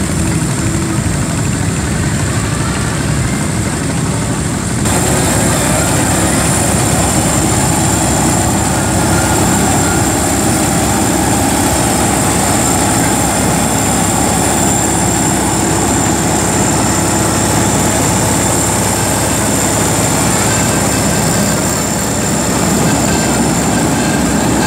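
Farm machinery engine running steadily. About five seconds in the sound shifts to a slightly louder, closer engine with a thin steady high whine over it.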